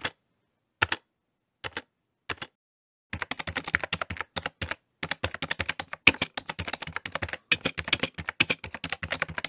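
Typing on a keyboard: a few separate keystrokes with gaps between them, then from about three seconds in a fast, steady run of key clicks.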